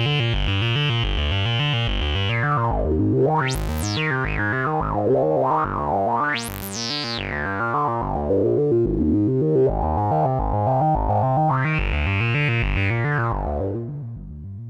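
A sequenced, repeating synthesizer bass line from the Erica Synths Polivoks-style oscillators, saw and square waves mixed together. The filter cutoff is swept: the tone dulls about two seconds in, makes two sharp resonant sweeps up to a high whistle and back down, then opens bright again near the end before fading.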